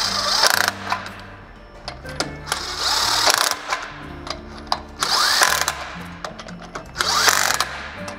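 Cordless power driver spinning nuts onto the wheel-hub studs of a carbon-ceramic brake disc, in about four short bursts, each with a rising motor whine. Background music plays underneath.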